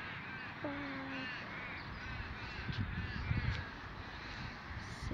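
Birds calling over and over in short arched chirps, with one flat, held lower call just under a second in. A low rumble swells around the middle.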